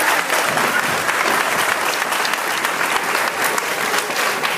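A group of people clapping and applauding steadily, with many quick overlapping claps.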